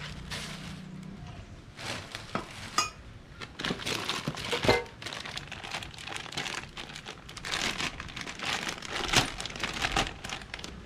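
Clear plastic bag crinkling and rustling in irregular bursts as it is handled and opened, with a sharper crackle about halfway through.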